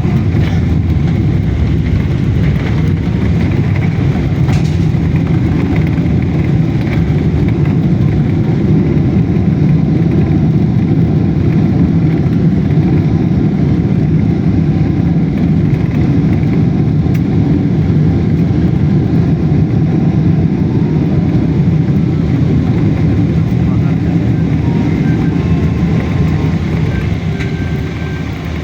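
Steady low rumble of a jet airliner heard from inside the cabin as it rolls on the runway after landing, easing off slightly near the end.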